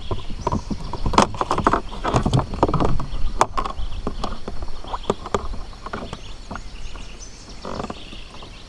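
Irregular knocks, clicks and rustles of a caught fish being handled and laid out for measuring on a kayak. The knocks thin out and grow quieter over the last few seconds.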